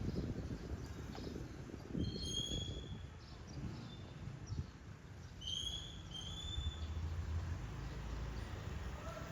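A bird calling in short whistled notes: a few about two seconds in, then a few more about five and a half seconds in, over a steady low background rumble.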